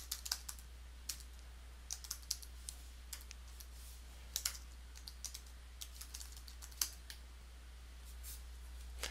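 Typing on a computer keyboard: irregular runs of keystrokes with short pauses, stopping about seven seconds in, over a faint steady low hum.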